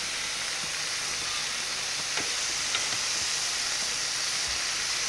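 Steady hissing noise with a few faint ticks.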